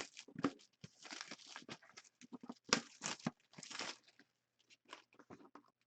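Sealed hockey card box packaging being opened by hand: plastic or foil wrapping tearing and crinkling in irregular bursts, loudest around the middle.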